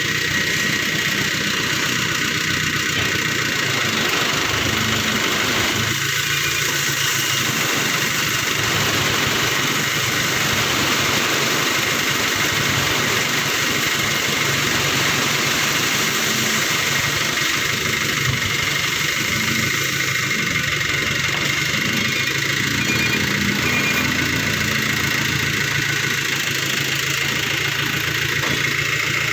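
A vehicle engine idling steadily under a constant hiss.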